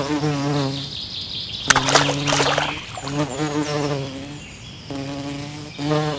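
Bee buzzing sound effect in several separate buzzes, each about a second long, with a noisy whoosh about two seconds in.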